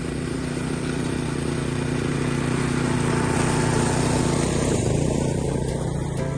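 Gas walk-behind push mower engine running steadily while cutting grass. It grows louder as the mower comes close, about four seconds in, then eases off.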